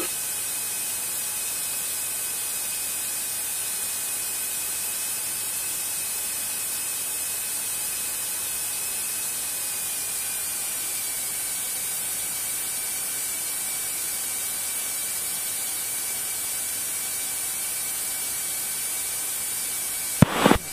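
Steady electronic hiss on the aircraft's intercom and radio audio line, with a faint steady whine whose pitch dips slightly about halfway through.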